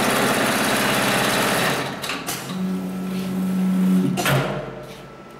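Hightex 72600PLK2 heavy-duty automatic pattern sewing machine stitching thick synthetic webbing at high speed, a dense steady machine clatter that stops about two seconds in. A few clicks follow, then a steady low hum for a second or two, and a short burst of noise about four seconds in as the cycle ends.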